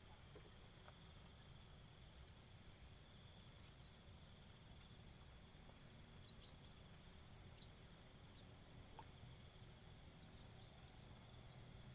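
Faint insect chorus: a steady, high, unbroken trill, with a few short chirps about six seconds in, over a low rumble.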